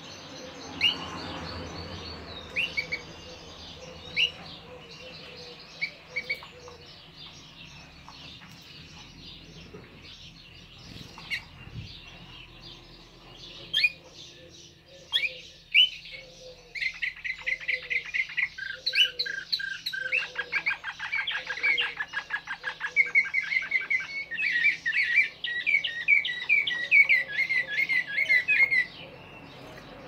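Serbian Slavujar song canary singing: scattered single chirps at first, then about halfway through a long unbroken run of song with rapid trills and quickly repeated notes, which stops abruptly near the end.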